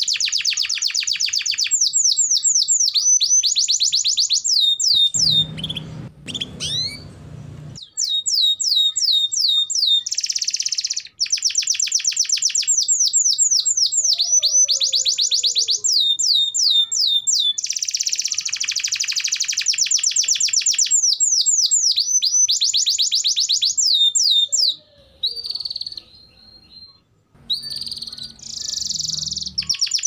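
Domestic canary singing a long, loud song of fast trills and rapid runs of repeated sweeping high notes, broken by a few short pauses.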